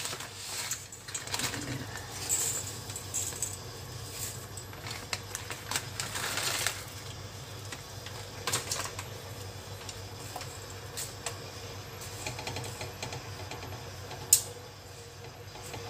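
Water at a rolling boil bubbling in a stainless-steel pot, with scattered small clicks and rattles as dry spaghetti goes in. One sharp click near the end.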